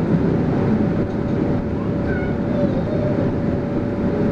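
Cabin noise of a city bus under way: the steady running of the drivetrain and the tyres on the road, with a constant whine held at one pitch.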